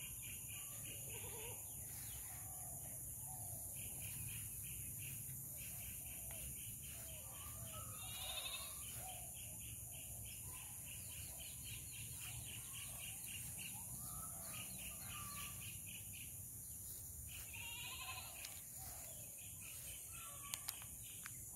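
Field ambience: a steady high insect drone, a pulsed chirping trill that repeats in runs of a few seconds, and scattered short bird calls. Two sharp clicks come near the end.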